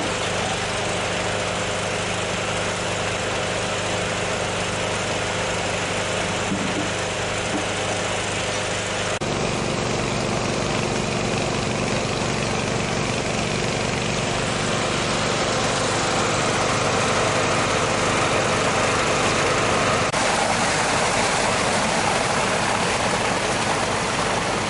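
An engine running steadily, its pitch and tone changing suddenly about nine seconds in and again about twenty seconds in.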